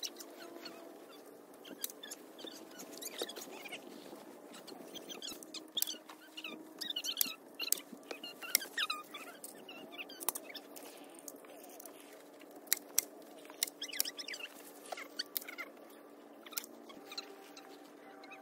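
Irregular sharp clacks of a hand staple gun stapling a tarp down to a wooden frame, over faint high chirping.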